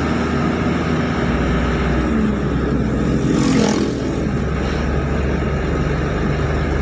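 A light cargo truck's diesel engine running steadily under way, with road noise. An oncoming car passes in a brief whoosh about halfway through.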